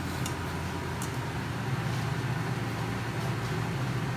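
Steady hum and fan noise of a portable induction hob running under a saucepan, with a few light clicks of a metal spoon against the pan in the first second.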